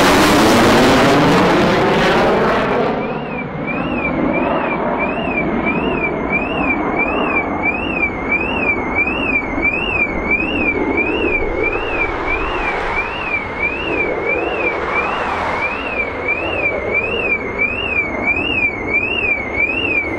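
Panavia Tornado GR4's twin RB199 turbofans, loud overhead and sweeping down in pitch as the jet passes, fading after about three seconds into a distant rumble as it climbs away. From about three seconds in, an electronic alarm warbles steadily up and down, rising and falling a little over once a second.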